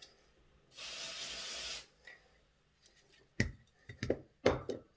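Aerosol contact cleaner sprayed in one short burst of about a second, followed by a few sharp clicks and knocks.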